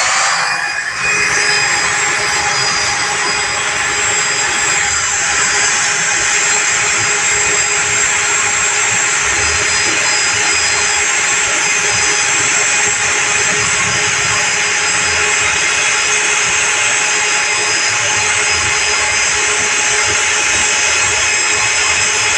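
A motor-driven shop tool starts abruptly and runs steadily and loudly, with a high whine over a rushing noise.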